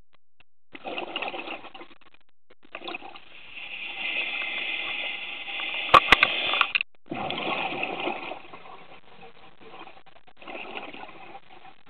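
Scuba regulator breathing underwater: bursts of exhaled bubbles rushing past, each lasting one to four seconds, with quiet gaps between breaths. Two sharp clicks about six seconds in are the loudest moment.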